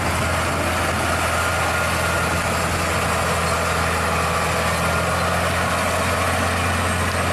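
Scania road-train truck's diesel engine running steadily as it hauls loaded double side-tipper trailers: a constant low hum under an even hiss.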